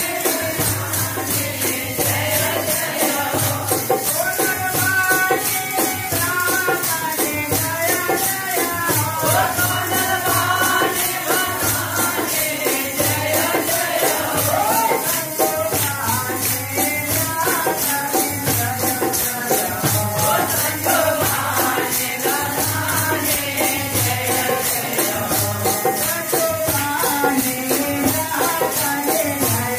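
Devotional bhajan kirtan: a group singing a wavering melody, with small hand cymbals jingling in a steady, even rhythm and a low drum beat underneath.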